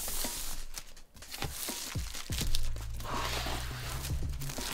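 Plastic wrap crinkling and the cardboard laptop box scuffing and tapping as it is handled and tipped onto its side on a wooden desk.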